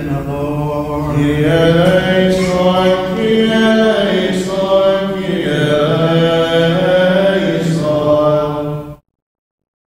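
Byzantine liturgical chant sung by a man's voice, long held notes sliding between pitches. It stops abruptly about nine seconds in, and complete silence follows.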